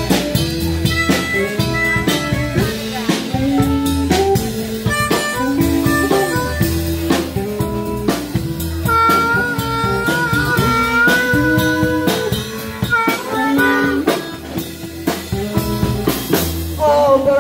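Live blues band playing: an amplified harmonica, cupped against a microphone, leads over electric guitar, electric bass and drum kit. About halfway through, the harmonica holds a long, wavering high note.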